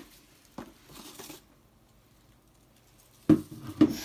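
Rummaging and handling things on a work table: a click, a short rustle, then two sharp knocks about half a second apart near the end.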